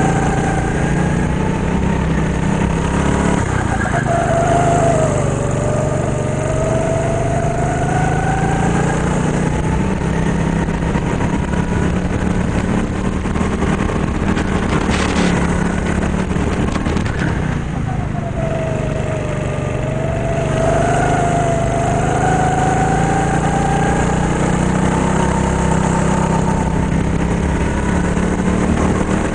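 Go-kart engine running continuously, its pitch climbing as it speeds up along the straights and dropping back through the corners, several times over. A brief hiss comes about halfway through.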